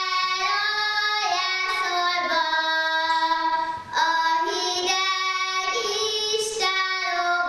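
A young girl singing solo without accompaniment, in long held notes, with a short break for breath about four seconds in.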